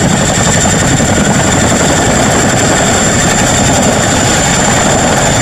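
Boeing CH-47 Chinook tandem-rotor helicopter hovering low: loud, steady rotor and engine noise with a high, steady turbine whine above it.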